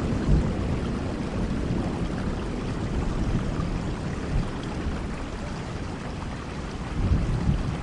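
Steady rainfall with a low rumble of distant thunder that fades in the first seconds and swells again near the end.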